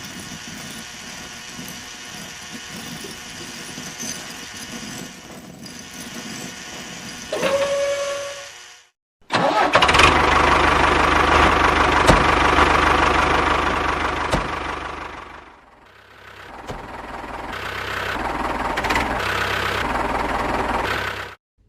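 Small electric motor of a DIY model tractor's drilling rig running, in several cut-together stretches; it spins up with a rising whine about seven seconds in, and runs loudest in the middle.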